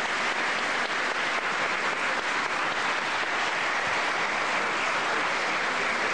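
Audience applauding steadily: dense, even clapping that holds without a break.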